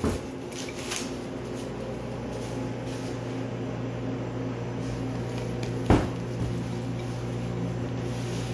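Steady low hum of commercial kitchen equipment such as a ventilation fan or refrigeration. Plastic wrap rustles and crackles briefly as it is pulled off a dough ball near the start, and there is one sharp knock about six seconds in.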